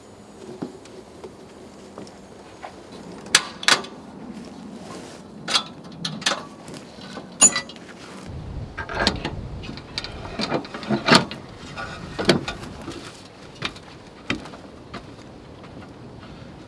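Irregular knocks and metallic clanks of a rooftop tent and an aluminium ladder being handled on a Land Rover Defender's roof rack, with a sharp clank now and then and a busy cluster of knocks near the middle.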